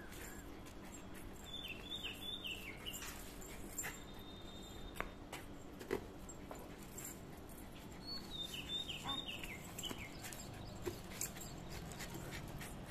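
A dog whimpering in short, high, falling whines, in two brief runs, with scattered light clicks and taps as it jumps at a balloon. Faint overall.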